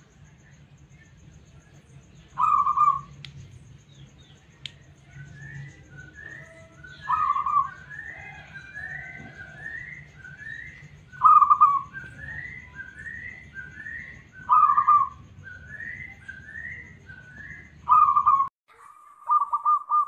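Zebra dove (perkutut) song: a loud coo phrase every three to four seconds, then a fast run of short staccato coos near the end. Fainter, evenly repeated rising calls sound in the background through the middle, over a low hum that cuts off suddenly just before the fast run.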